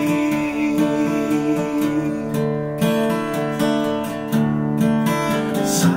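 Acoustic guitar strummed in a steady rhythm, its chords ringing on between the strokes.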